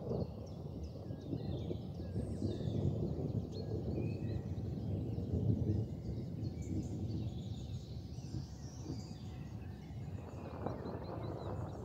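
Outdoor ambience: a steady low rumble of noise, with small birds chirping faintly now and then.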